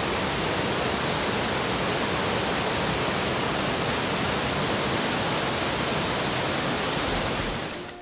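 Mountain creek rushing and cascading over boulders in close-up whitewater: a steady, full rushing noise that fades out near the end.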